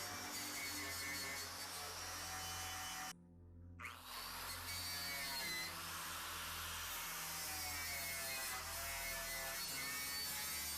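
Power tool with a wire wheel running, stripping paint off car body sheet metal; a faint steady hum with a wavering pitch. It cuts out briefly about three seconds in.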